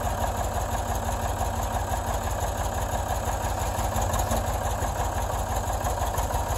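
Ford 555B backhoe loader's engine idling steadily with an even low throb.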